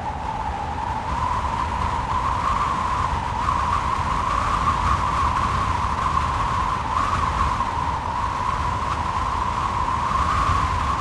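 Wind howling: a steady, slightly wavering whistle over a rushing hiss and low rumble, swelling a little after the first second.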